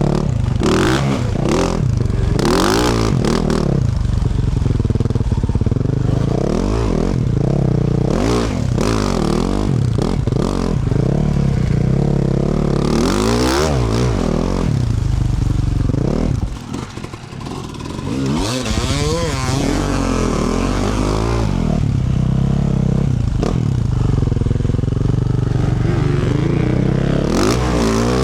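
Yamaha YZ450F's single-cylinder four-stroke engine through a Yoshimura RS-12 exhaust, revving up and down over and over as the throttle is worked, with clattering from the bike. A little past halfway the engine sound drops away for about a second and a half, then rises again.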